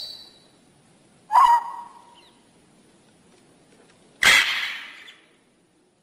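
Macaw squawks: a short squawk about a second in, then a longer, harsh squawk about four seconds in, after which the sound cuts off completely.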